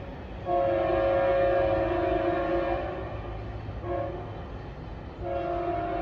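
Diesel locomotive's multi-chime air horn sounding the grade-crossing signal: a long blast, a short blast, then a long blast starting near the end, completing the long-long-short-long pattern.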